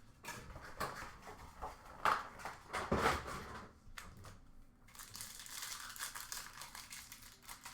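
Trading-card pack wrappers and packaging being crinkled and torn open by hand: irregular rustling and tearing with a few sharp handling clicks, and a steadier crinkle over the last few seconds.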